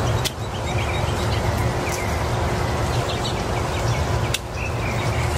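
Felco hand pruners cutting rose canes: three sharp snips about two seconds apart, over a steady low rumble with faint bird chirps.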